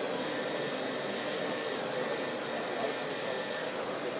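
Steady whirring of radio-controlled model construction machines at work, with faint steady whining tones, over the hum of a large hall.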